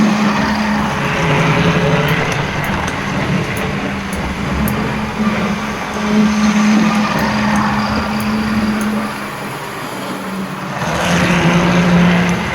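OO-gauge Triang Pullman model train running on the layout track: a steady electric-motor hum that shifts slightly in pitch as the speed changes, with light clicks of the wheels over the rail joints.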